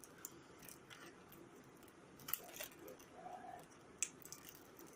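Faint, scattered clicks and light rustling as a packet of Wilhelmina peppermints is handled and opened, with the sharpest click about four seconds in.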